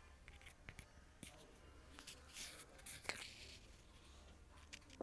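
Faint handling noise of a handheld phone being moved about: scattered light clicks and rustles over a low steady room hum, a little louder about two and a half to three seconds in.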